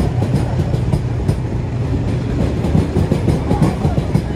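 Passenger train coaches running past at speed: a steady rumble of steel wheels on rail, with many short clicks and clacks as the wheels cross the rail joints.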